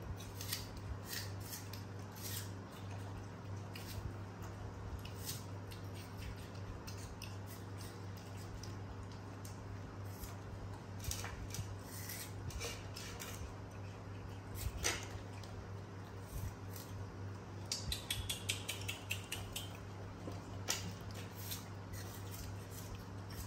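Macaques biting and chewing crisp apple slices: scattered sharp crunches and snaps, with a quick run of them about eighteen seconds in, over a steady low hum.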